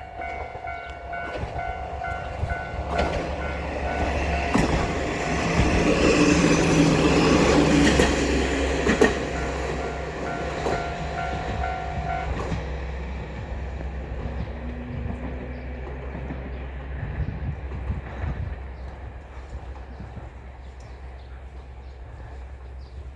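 Japanese railway level-crossing alarm ringing its repeated electronic bell while a diesel train passes over the crossing, the loudest part about six to nine seconds in, with clacks of wheels over rail joints. The bell cuts off about twelve seconds in, and the train's rumble fades away.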